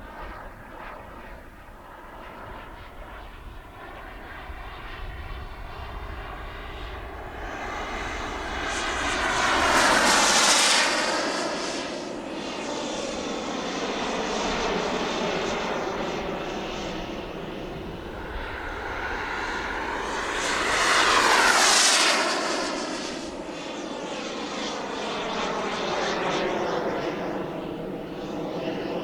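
Twin model jet turbines of a large radio-controlled English Electric Lightning in flight, making two passes. The turbine rush swells to its loudest about ten seconds in and again about twenty-one seconds in, fading down between and after.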